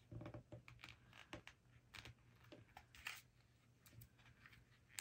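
Faint, scattered clicks and taps of a small plastic container of nail charms being handled and turned, its lid stiff and not moving.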